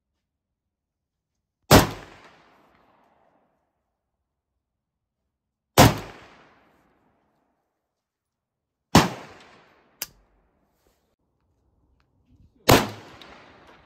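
Kalashnikov rifles fired in slow single shots: four shots spaced three to four seconds apart, each with a short echoing tail. A light click follows about a second after the third shot.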